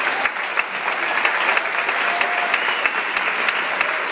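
Audience applauding: dense, steady clapping from a large crowd at the close of a spoken-word poem, with a faint cheer about two seconds in.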